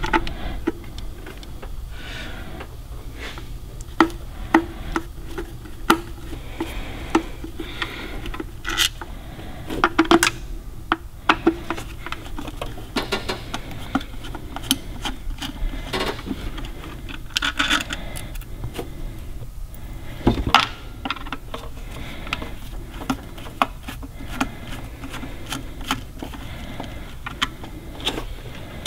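Screwdriver backing out the small screws that hold the coil cover on a Chevy small-block's HEI distributor cap: scattered clicks, scrapes and little rattles of the tool and screws against the cap, over a steady low hum.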